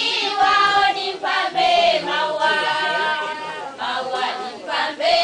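A group of voices, mostly women, singing together in chorus, with notes held for a second or more.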